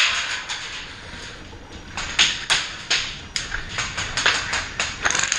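Airsoft guns firing scattered single shots, sharp irregular snaps that start about two seconds in, after a stretch of hiss.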